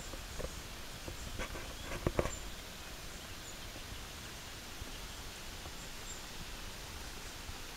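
Outdoor river ambience: a steady hiss of wind and moving water, with faint short high chirps now and then. A few sharp knocks come in the first seconds, the loudest pair about two seconds in.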